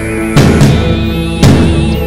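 Background music: sustained chords under a wavering high lead note, with two heavy drum hits about a second apart.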